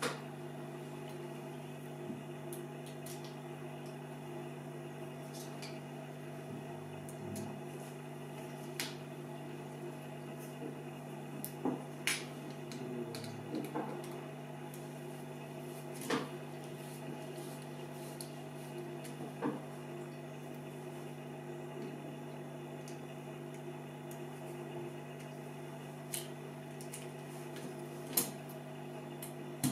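Scattered clicks and taps of a screwdriver working the screws and metal chassis of a Sharp 939 cassette deck mechanism as its remaining screws are fastened, over a steady low hum.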